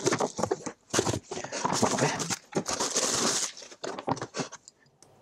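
Cardboard box and packaging rustling and scraping as a ceramic fan heater is pulled out of its box, in quick, irregular bursts that stop shortly before the end.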